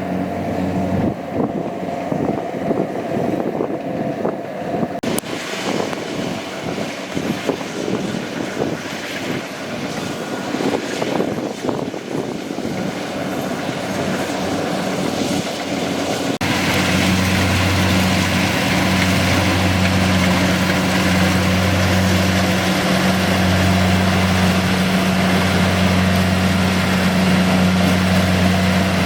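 Kubota DC-70G PRO combine harvester running: a diesel engine with dense mechanical clattering. About halfway through the sound changes suddenly to a steadier engine hum that swells and fades in a slow, regular pulse.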